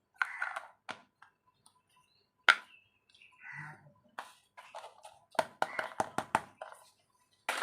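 Small plastic toy kitchen pieces and packaging being handled: scattered clicks and short rustles, with one sharp click about two and a half seconds in and a quick run of clicks around six seconds.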